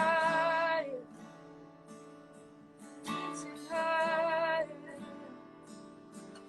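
Worship music: a woman singing two long held notes with vibrato, one at the start and one about four seconds in, over a strummed acoustic guitar.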